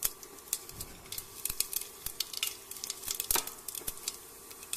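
Cumin seeds and bay leaves crackling in hot oil: a quick, irregular run of sharp little pops over a faint sizzle, the tempering stage before the onions go in.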